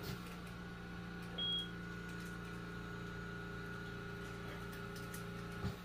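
Steady electrical hum of a running appliance, with one brief high beep about a second and a half in and a soft knock near the end.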